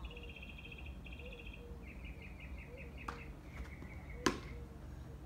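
Tennis ball struck by a racket during a rally: a sharp pop about four seconds in, the loudest sound, with a fainter knock about a second before it. Birds trill rapidly throughout.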